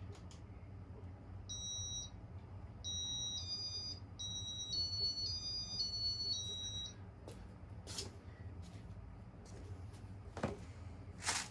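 A short tune of high electronic beeps, each step a chord of two or three tones, played by the Casablanca Victorian ceiling fan's electronic control, over a steady low hum. A few sharp clicks come near the end.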